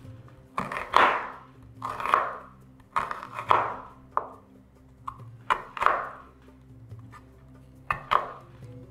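Chef's knife slicing through a peeled onion and striking a wooden cutting board: about ten sharp cuts at an uneven pace, with a pause of about two seconds before the last two.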